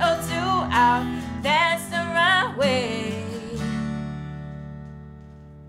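End of a song: a voice sings the last line over strummed acoustic guitar and bass, the singing stopping about three and a half seconds in. The final chord then rings on and slowly fades.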